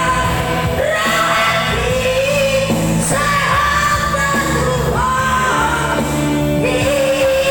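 A Batak-language song: singing voices holding long, wavering notes over a steady instrumental accompaniment.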